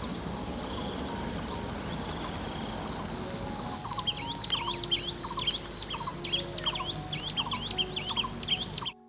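Forest ambience: a steady, high insect chorus of crickets or cicadas, joined about halfway through by a bird giving short calls over and over, about two a second. It all cuts off suddenly near the end.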